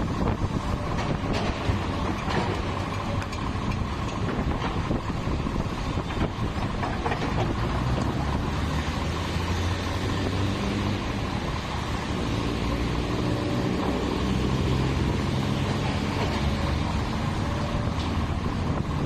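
Komatsu backhoe loader's diesel engine running under work, its engine note shifting up and down through the middle.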